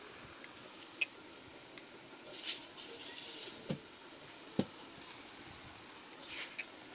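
Faint scattered clicks and a couple of brief rustles over a steady background hiss, typical of handling noise in a small room.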